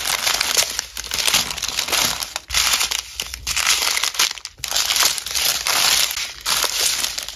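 Small clear plastic bags of square diamond-painting drills crinkling and rustling as they are handled and shuffled through, in irregular bursts with short pauses.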